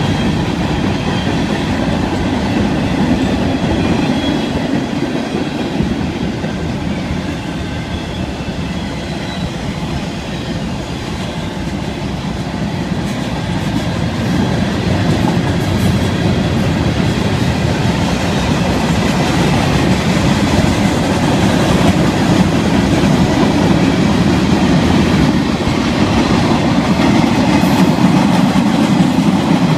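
Freight train cars rolling past, a steady sound of steel wheels on rail that grows a little louder in the second half.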